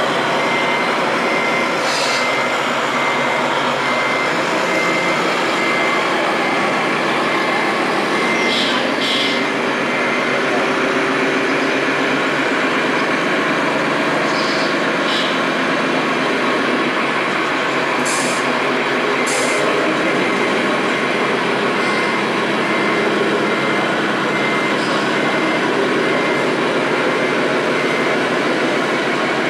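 Reversing beeper from an RC scale truck's sound module: a run of evenly spaced high beeps for about the first ten seconds, starting again about two-thirds of the way through, over a constant background din. A few short hisses come in between.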